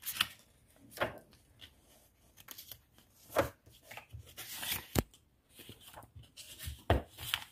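Paper handling: the rustle of pages and covers of a paperback atlas and a contour-map workbook on a wooden desk, with several sharp taps and clacks spread through it.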